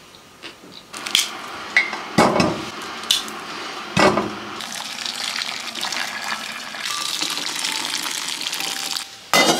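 Corn cobs knocking against a stainless steel pot as they are put in. Then water is poured over them from another vessel, a steady splashing pour of about four seconds. A sharp knock comes near the end.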